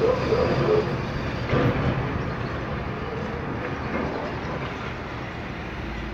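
Steady din of road traffic and street noise, with a few brief sounds in the first two seconds.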